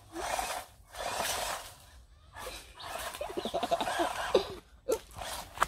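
Electric RC off-road buggy driving in three bursts on a loose sandy trail, its tyres spinning and throwing sand. The spinning shows the buggy lacks grip.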